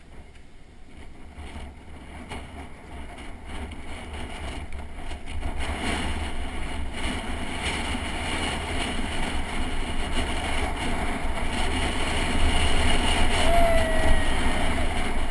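Wind buffeting the microphone of a camera on a pedal bicycle as it speeds up, a low rumbling rush that grows steadily louder as the bike gathers speed. A short falling squeal comes near the end.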